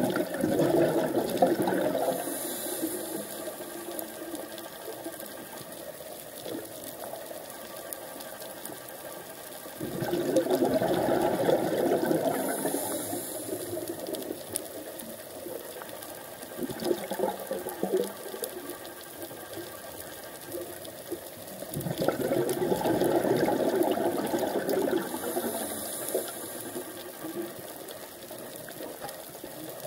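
Scuba diver breathing through a regulator underwater: three rushes of exhaled bubbles about twelve seconds apart, each lasting a few seconds, with a few softer crackles in between.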